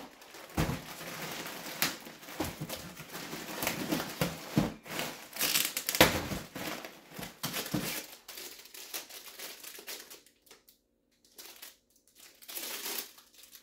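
Plastic poly mailer bag crinkling and rustling as it is opened and handled, with many sharp crackles for about eight seconds, then only a few faint rustles.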